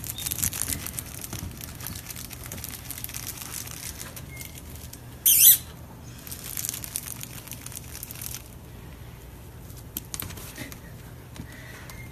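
Rustling, scratching and scrabbling as sphynx kittens tussle on shaggy rugs and a cardboard cat house, with fine ticking in the first few seconds and one short, louder scratchy burst about five seconds in.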